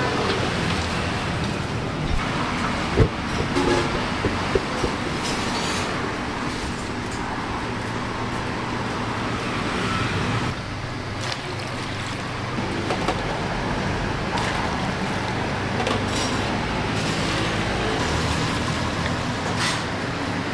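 Steady hum of street traffic, with a few sharp knocks about three to four and a half seconds in.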